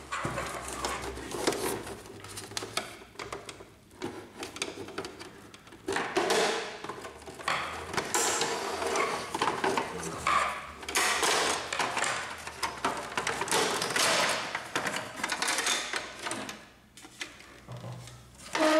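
Plastic housing of an inkjet printer's scanner unit being handled and lifted apart: irregular clicks, knocks and scraping of plastic parts, with short pauses.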